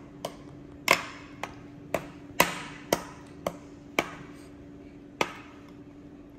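Metal spoon clinking against a glass mixing bowl while stirring and mashing soft cooked pumpkin, about two sharp taps a second, then one last tap after a short pause.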